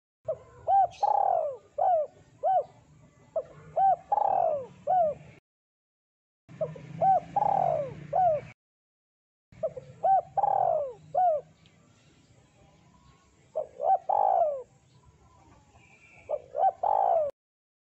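Spotted dove (tekukur) cooing: several phrases of short coos, each closing on a longer coo that falls in pitch. Between phrases the sound cuts out to complete silence a few times.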